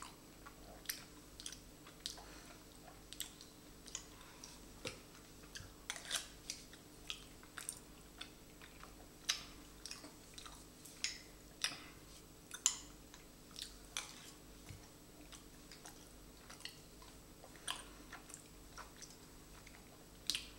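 Sticky chewing and mouth clicks from a man eating thick Vegemite by the spoonful, along with the spoon scraping and tapping in the jar. The sounds are quiet, short and irregular, about one or two clicks a second.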